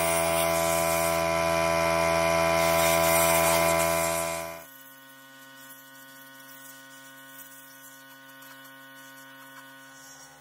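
Pneumatic spray gun blasting air and fluid at the dozer's final drive gears, a loud steady hissing buzz that cuts off abruptly about four and a half seconds in; a faint steady hum continues afterwards.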